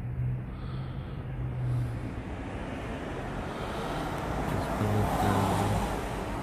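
A motor vehicle passing close by, its engine and tyre noise swelling to a peak about five seconds in, then easing off.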